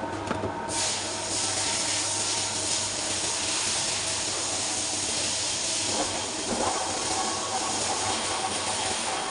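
Large metal lathe running, with a steady hum under a loud, even hiss that starts about a second in.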